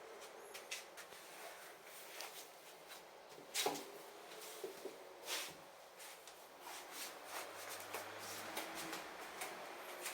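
Scattered light clicks and knocks over a faint hiss in a small room, the loudest knocks about three and a half and five seconds in.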